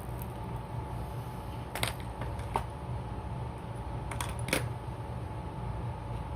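A few light clicks and clinks as fishing lures are handled and knocked together in a plastic tackle box, about four over several seconds, over a steady low hum.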